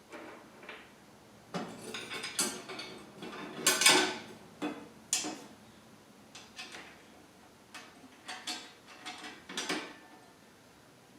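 Metal table parts and hardware being handled and fitted together: a run of irregular clinks, clanks and rattles, loudest about four seconds in.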